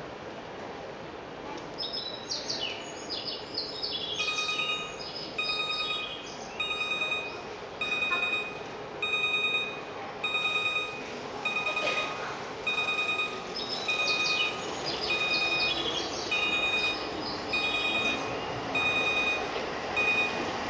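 Platform warning tone for an approaching train: a pitched electronic tone repeating about once every 1.2 seconds, starting a few seconds in. Quick bird-like chirps sound over it in two spells.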